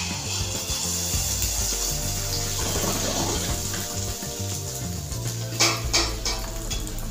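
Malpua batter sizzling steadily in hot oil in a kadhai, the hiss starting as the batter is ladled in. About five and a half seconds in, a spatula knocks twice against the pan.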